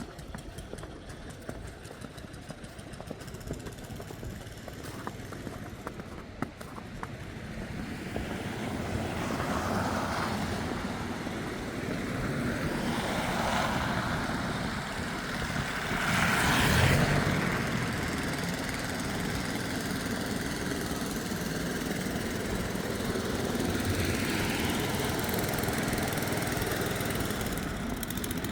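Footsteps crunching in snow, then the rumble of passing vehicles builds from about eight seconds in, with several passes swelling and fading; the loudest is about seventeen seconds in.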